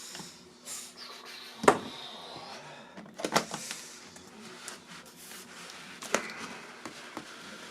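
Handling noise from unpacking a boxed pen display: a few sharp knocks, the loudest about a second and a half in, with rustling in between.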